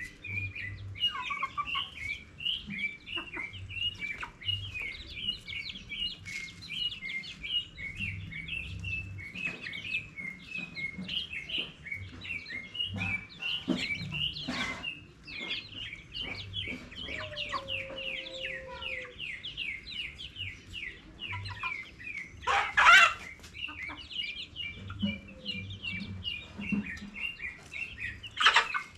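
Chickens calling: a continuous run of high, rapid chirps, with an occasional low cluck and a loud short squawk-like burst about two-thirds of the way through.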